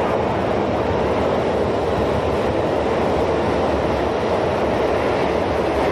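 Toei Shinjuku Line 10-300 series subway train moving past an underground station platform: a steady, even rumble of wheels on the rails and running gear, with no change in loudness.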